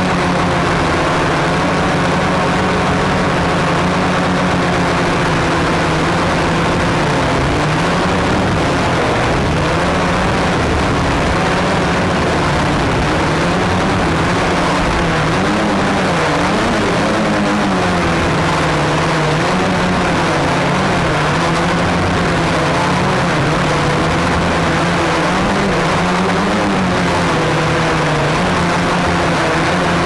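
Flexify multirotor drone's motors and propellers humming steadily over a rushing noise as heard from its onboard camera. From about a quarter of the way in, the pitch wavers up and down as the motors keep changing speed to hold the drone steady in gusty wind during its descent.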